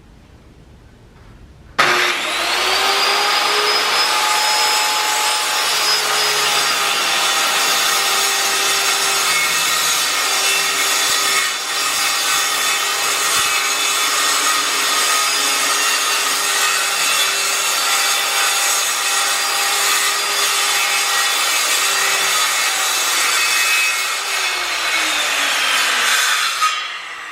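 Circular saw starting about two seconds in, its motor whine rising to speed, then cutting steadily through a sheet of plywood. Near the end the whine falls away as the saw winds down.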